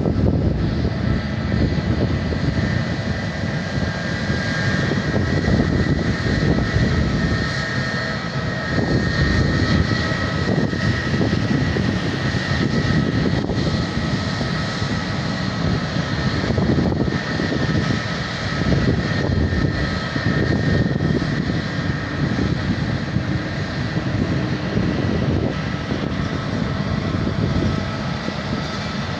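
Jet airliner engines running at a steady low power, a high whine held at a fixed pitch over a dense, uneven low rumble.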